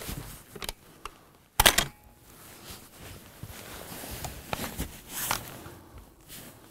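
Bolt of a bolt-action precision rifle being run forward and locked shut, a quick cluster of sharp metallic clacks about a second and a half in. A few softer handling clicks and rustles follow.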